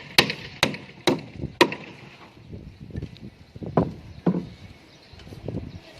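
Hammer blows on wooden formwork boards: four quick strikes about two a second, then a gap and three more spaced-out strikes.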